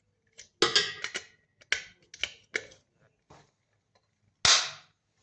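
Glass panel of a touch light switch being handled and fitted back on: a run of sharp clicks and taps, then one louder snap with a brief hiss about four and a half seconds in.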